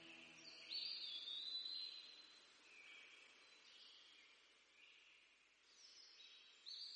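Near silence, with faint high steady tones coming and going.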